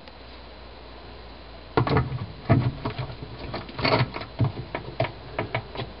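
Hard plastic clicks and knocks as a dishwasher's soil accumulator is fitted into place over the wash sump. They come as an irregular series starting about two seconds in.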